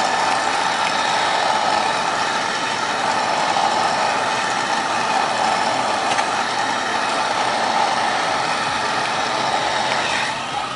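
Heat gun blowing steadily to soften the screen adhesive, switched off near the end.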